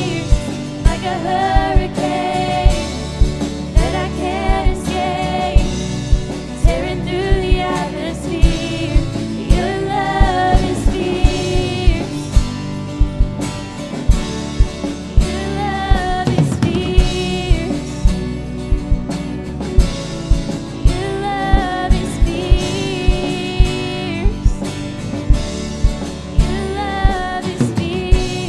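Live contemporary worship song: a woman singing the lead over a band, with a steady drum beat.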